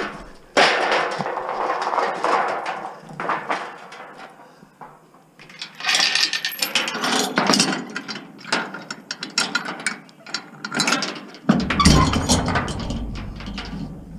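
Scrap metal clanking and rattling as it is handled and loaded into the back of a vehicle: three long runs of knocks and scrapes, with a low rumble joining in near the end.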